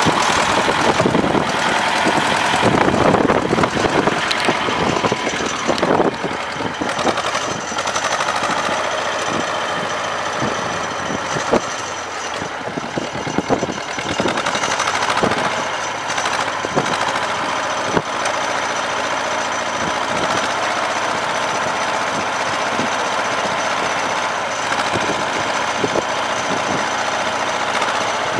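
T-25 tractor's two-cylinder air-cooled diesel engine idling, warming up after a cold start in −5 °C frost. Louder and more uneven for the first several seconds, then steady, with a few sharp clicks.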